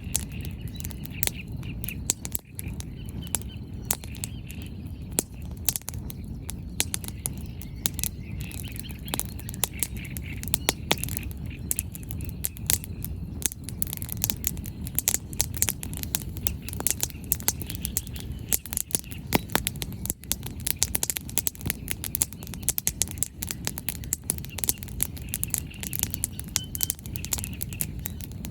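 Wood bonfire burning, the firewood crackling with frequent sharp pops over a low steady rush. Birds chirp faintly now and then.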